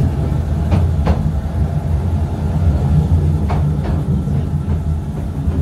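Narrow-gauge Mail Rail train running through a tight tunnel, heard from aboard: a steady, heavy low rumble of the wheels and running gear. A few brief, faint higher clicks come about a second in and again past three seconds.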